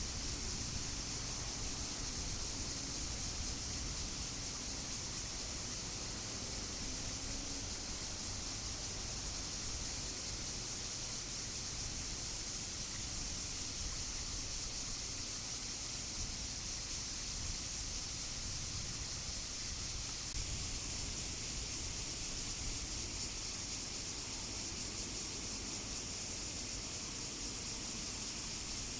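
A chorus of cicadas makes a steady, high-pitched buzzing drone that keeps on without a break, over a low rumble.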